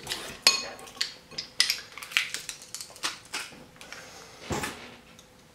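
Hand garlic press crushing garlic cloves: a run of crisp crunches and clicks, about one every half second.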